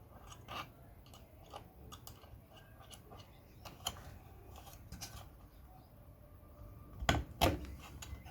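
Scattered small clicks and taps of plastic and metal parts being handled as the spring is fitted back onto a front-loading washing machine's door latch, with two louder knocks about seven seconds in.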